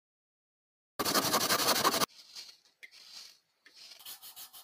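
Wood being abraded by hand on a small pen blank: about a second in, a loud second of fast scratchy rubbing strokes, then quieter, on-and-off rubbing.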